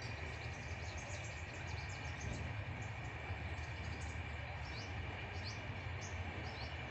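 Small birds chirping in many short, quick calls over a steady low rumble.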